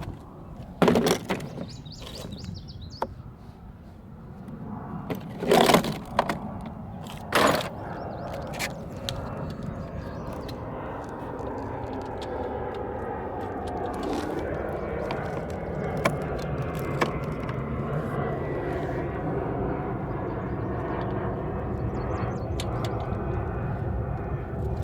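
Three loud bangs or clanks in the first eight seconds, then a steady vehicle rumble that slowly grows louder.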